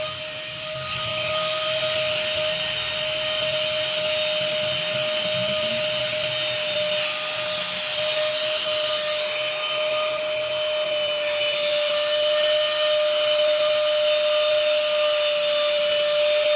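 Vention handheld car vacuum cleaner running steadily: a constant motor whine over airflow hiss, the hiss changing for a few seconds in the middle.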